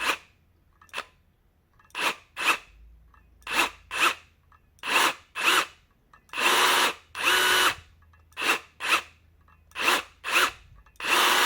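Bosch GRG 18V 16 C cordless rivet gun's brushless motor driving the jaws through repeated trigger presses. Short motor runs come in pairs about half a second apart, and about six and a half seconds in and again near the end come longer runs with a steady whine. The retraction length follows how long the trigger is held, as in the tool's manual mode.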